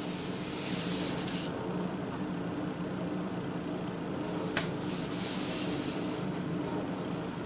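Fabric being handled and pulled, rustling and hissing in two short stretches, about a second in and again around five seconds, with a single click in between. A steady low hum runs underneath.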